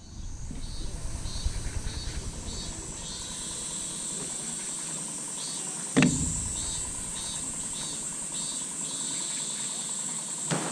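Insects trilling steadily in a summer night chorus: a continuous high-pitched trill, with a softer chirp repeating about twice a second. A low rumble fades out over the first few seconds, and a single sharp knock comes about six seconds in.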